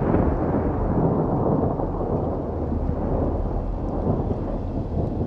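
A long roll of thunder, a deep rumble whose higher crackle slowly dies away.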